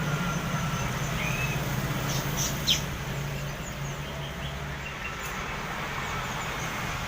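Small birds chirping in short high calls, with a few sharp sweeping chirps around the middle, over a steady low engine hum.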